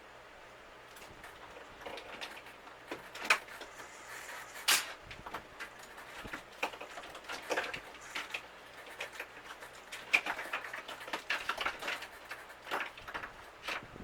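Irregular clicks, taps and knocks of hard parts being handled, with the sharpest knocks about 3, 5 and 10 seconds in, over a faint steady low hum.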